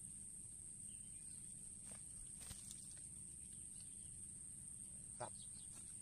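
Quiet rural ambience: a steady high-pitched insect drone, a few soft rustles and clicks of hands working in dry leaves and grass, and a short burst of bird chirps about five seconds in.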